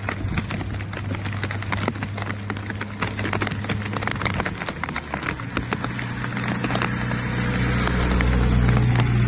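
A motor vehicle's engine hum that grows louder from about halfway through and is loudest near the end, over scattered clicks and taps.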